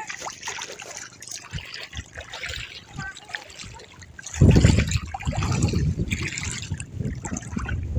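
Shallow seawater trickling and splashing, with small clicks. From about halfway through, a much louder low rumble takes over.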